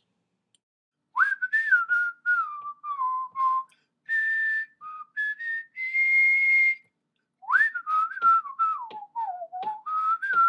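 A whistled tune: one clear melody line in short phrases, falling and rising, with a few held high notes and short clicks among the notes. It starts about a second in, pauses briefly past the middle, then picks up again.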